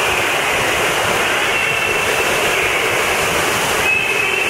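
Rushing, splashing water as a family raft slides down a water slide flume: a loud, steady wash of water noise, with a brief thin high tone near the end.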